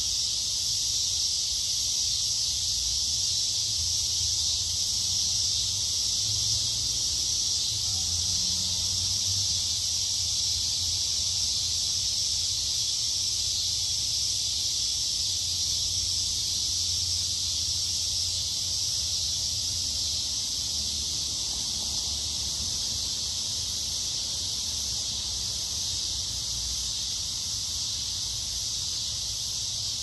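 A dense chorus of summer insects making one steady, high-pitched drone that does not let up, with a faint low rumble underneath.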